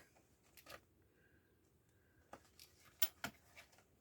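A few faint, scattered clicks and rustles of a book's paper pages and a loosened signature being handled.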